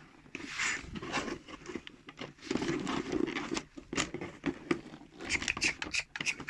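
Hands working at a toy's cardboard and plastic packaging to get it open: irregular scraping, crackling and clicking.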